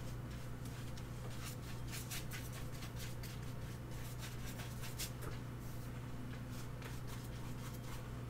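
A large 3/4-inch natural-hair flat watercolor brush swishing and scraping across watercolor paper in broad strokes, many short scratchy strokes one after another, over a steady low hum.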